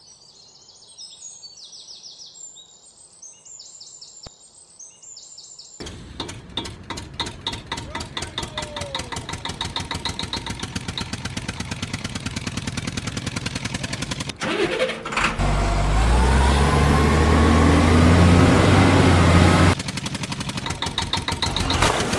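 Faint high chirping for the first few seconds. Then a tractor engine starts chugging with a rapid, even beat. About two-thirds of the way in it swells into a loud, heavy low drone for about four seconds, then drops back to chugging near the end.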